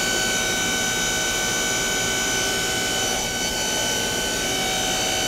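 Main spindle of a 2004 Nakamura-Tome WTS-150 CNC turning center spinning empty at a steady high speed: a steady whine of several high tones over a mechanical hum.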